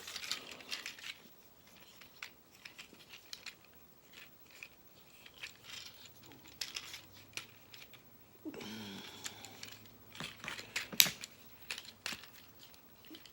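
Hard plastic parts of a transforming robot toy clicking and rattling as its joints and pieces are moved by hand, a scatter of small sharp clicks with one louder snap about eleven seconds in.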